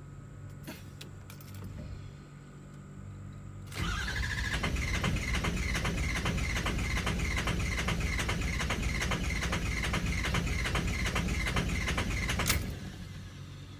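Ford 6.0 Power Stroke V8 diesel cranking on its starter for about nine seconds without firing: a no-start. It begins about four seconds in with a rising starter whine and fast, even pulses, and cuts off abruptly near the end. A few light clicks come before the cranking.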